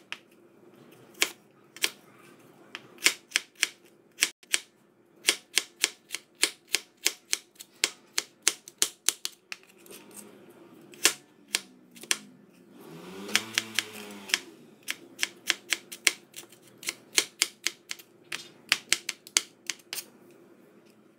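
Kitchen knife dicing carrot on a plastic cutting board: sharp knocks of the blade on the board in quick runs, a few a second. About halfway through the chopping pauses and a short low hum swells and fades.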